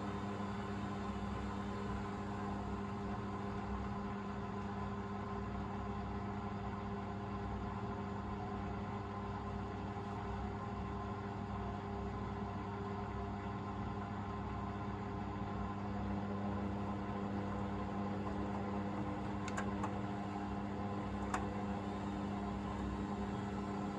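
Hoover VisionDynamic front-loading washing machine running through its second rinse: a steady motor hum, with two short clicks near the end.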